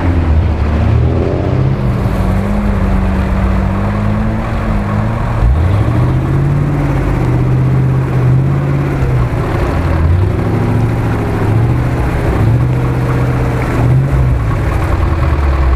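Engines of a UAZ-469 and a GAZ-66 off-road truck revving hard under load as they churn through deep mud. The engine note climbs, holds and drops again several times, with a sharp climb about five and a half seconds in.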